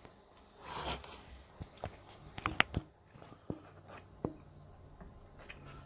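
Scattered light clicks and knocks with a short rustle about a second in: metal parts and gear being handled in a workshop.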